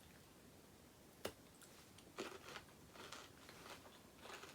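Faint, close-up chewing of a chocolate-covered macadamia nut with rice crisp. There is one sharp crunch just over a second in, then soft crunchy chews about twice a second.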